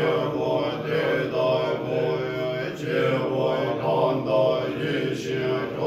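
Tibetan Buddhist monks chanting a mantra together in low, steady voices.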